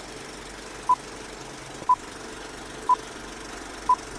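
A short, high electronic beep repeating evenly about once a second, four times, over a steady low hum.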